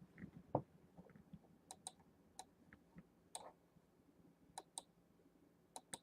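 Faint computer mouse clicks, scattered single and paired clicks over near-silent room tone, with a soft knock about half a second in.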